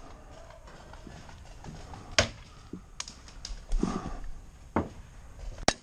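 Paintball markers firing scattered single shots: about half a dozen sharp pops at irregular gaps over a faint steady background.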